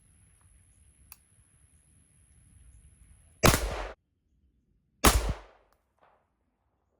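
Two rifle shots about a second and a half apart, each a sharp loud crack with a short fading tail, from a semi-automatic rifle with a Triarc 11.5-inch barrel fired as a test of whether its hand-drilled, enlarged gas port cycles the action.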